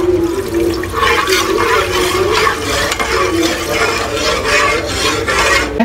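Milk poured into an aluminium pot of butter-and-flour sauce, splashing, while a metal spoon stirs the sauce and scrapes against the pot.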